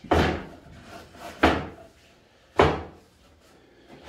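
Three sharp wooden knocks about a second apart, from a screwed-together frame of 2x6 and 2x4 lumber being set down and shifted on a table top.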